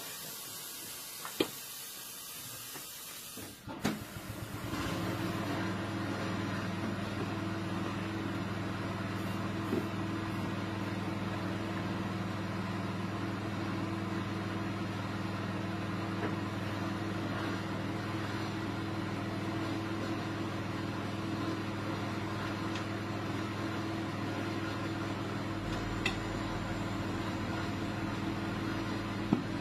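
Air hissing steadily for about four seconds, then an electric motor starts and runs with an even, steady hum, with a few faint clicks over it.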